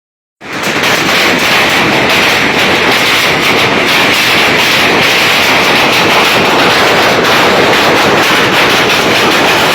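Hailstorm: hailstones pelting down in a loud, dense, steady clatter of countless small impacts, starting just under half a second in.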